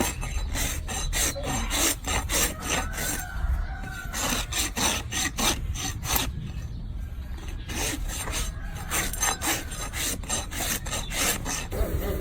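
Hoof rasp filing a donkey's hoof down in rapid, regular strokes, about two to three a second.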